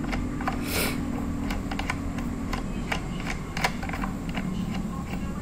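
Scattered light metallic clicks and taps as the steel arbor bolt and flange washer of a Makita miter saw are threaded onto the blade spindle by hand, over a steady low hum.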